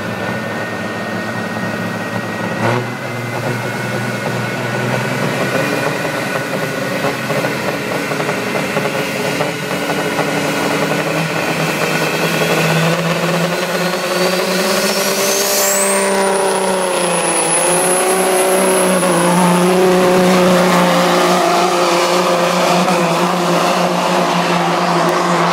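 Caterpillar diesel engine of a Peterbilt semi running hard under load while pulling the sled in a truck pull. A high whine climbs in pitch through the first half and then holds, and the engine grows louder toward the end.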